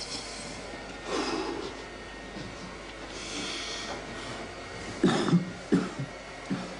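A person coughing: a cluster of short, harsh coughs about five seconds in and one more near the end, after softer rustling and breathy noises.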